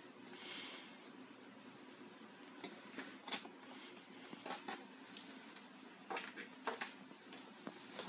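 Faint handling noises: scattered small clicks and taps as hands move insulated wires around a small relay receiver board on a table, with a short breath about half a second in.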